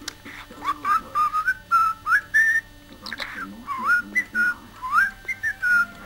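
Budgerigar whistling and warbling: a string of short whistled notes that swoop up and down, with a little scratchy chatter between them.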